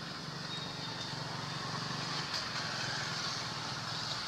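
A steady low engine-like hum, with a steady high hiss above it.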